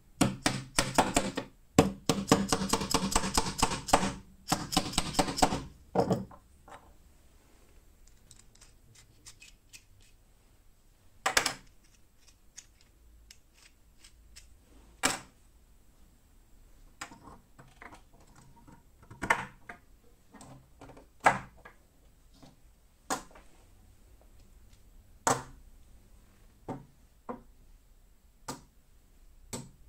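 A mallet tapping rapidly, many light blows a second, driving a nut into a hole in a plywood block through the first several seconds. After that, single clicks and knocks every second or two as steel bolts and wooden blocks are handled and set down on the bench.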